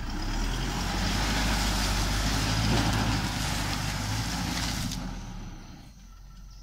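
Isuzu D-Max 3.0 Ddi four-cylinder turbo-diesel pickup engine working hard under load as the truck climbs a muddy slope in four-wheel drive, with a rush of tyre and crushed-vine noise. The sound drops off about five seconds in as the truck pulls away.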